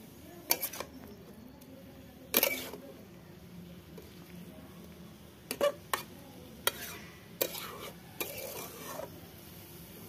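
A metal spatula scraping and clinking against a metal kadhai as a thick dried-jujube and okra masala is stirred. There are scattered sharp clinks, the loudest about two seconds in, and a quick run of them past the middle.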